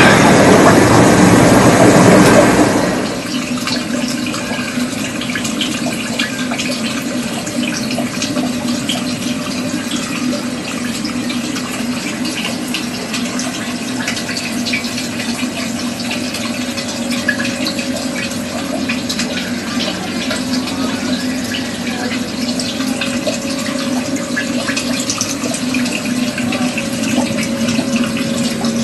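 Water running and trickling steadily through an aquaponics system's pipes, with a steady low hum underneath. A louder rushing noise opens the sound and drops away after about two and a half seconds.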